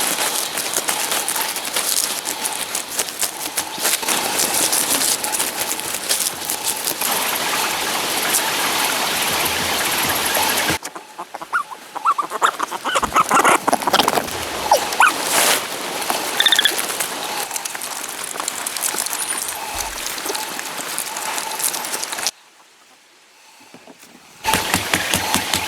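Ducks quacking and calling, in several short bursts with breaks between them. Near the end, an engine starts running with an even beat.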